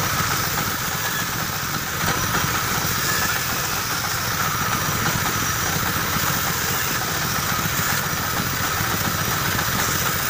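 Band saw running steadily while cutting a curved chair leg out of a timber board, a little louder from about two seconds in.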